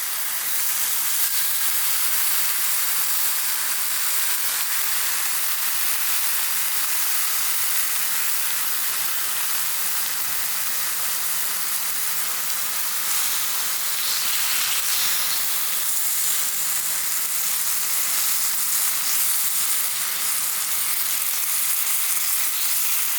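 Meat frying over high heat, sizzling steadily.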